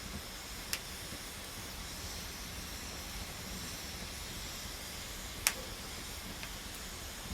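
Wood campfire burning with a steady hiss, with two sharp crackling pops from the burning wood, the louder one about five and a half seconds in.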